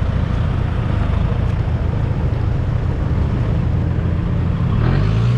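Off-road 4x4 engine running steadily, a low rumble, its note firming up slightly near the end.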